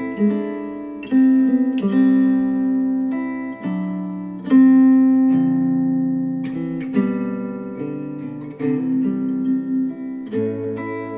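Acoustic guitar music played back through KEF LS50 Meta bookshelf speakers driven by an NAD C 338 amplifier. Plucked and strummed chords are struck every second or two, each ringing out and fading.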